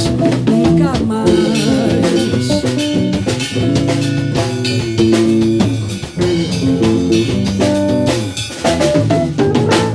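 Bossa nova band of guitar, bass and drum kit playing the closing bars of a song without vocals, the music stopping abruptly at the very end.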